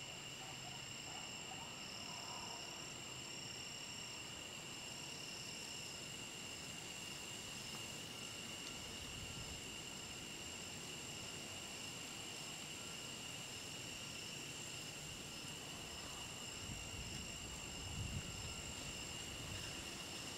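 Evening insect chorus: several steady high-pitched trills at different pitches, one of them pulsing on and off, with a brief low thump near the end.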